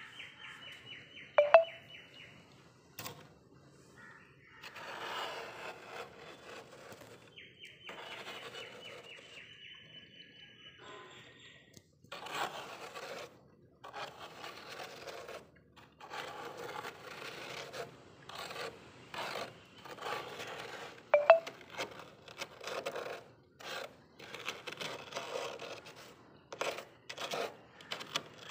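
Pink plastic scraper scraping thick built-up frost off the inside walls of a freezer in repeated rasping strokes of uneven length. A buzzing trill sounds at the start and again around 8 to 11 seconds in, and two short sharp sounds falling in pitch, about 1.5 s and 21 s in, are the loudest moments.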